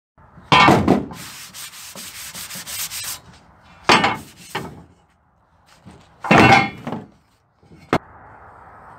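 A rusty steel plate is handled against a wooden block and a metal truck tailgate. A loud knock is followed by about two seconds of scraping, then several heavy clunks and a sharp click near the end.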